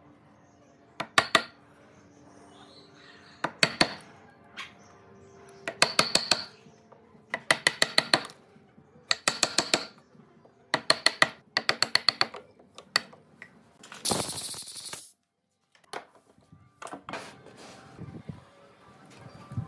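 A wood chisel is driven into a pine mortise by repeated striking, heard as quick runs of four to six sharp taps a couple of seconds apart. About two-thirds of the way in there is a brief hiss, followed by a few lighter knocks.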